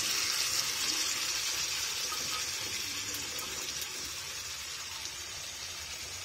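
Boiled chickpeas and their liquid poured into a hot kadai of fried spice paste, making a steady watery hiss that slowly fades.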